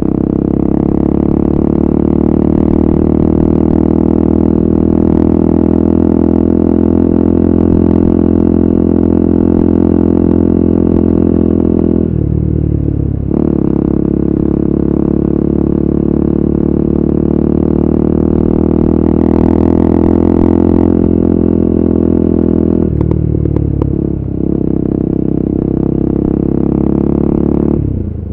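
KTM RC 390's single-cylinder engine through an aftermarket Akrapovic exhaust, running steadily while the bike cruises. The engine note dips briefly twice, once about twelve seconds in and again about ten seconds later, then picks back up.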